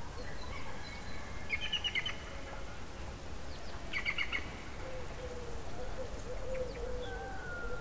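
Birds chirping over a faint low outdoor rumble, with two short bursts of quick high chirps, about a second and a half in and again about four seconds in.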